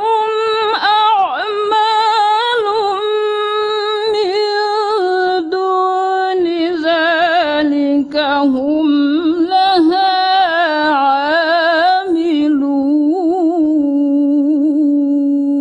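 A woman reciting the Quran in the melodic tilawah style, drawing out one long unbroken phrase. Her pitch steps gradually down, with rapid wavering ornaments on the held notes.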